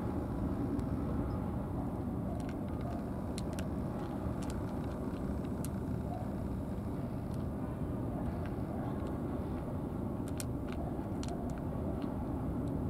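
Steady low outdoor background rumble, with a few faint, sharp clicks scattered through.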